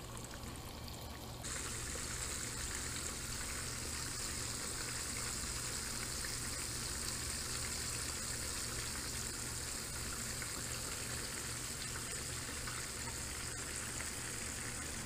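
Breaded bream frying in hot oil in a skillet on a propane camp stove: a steady sizzle that gets louder about a second and a half in.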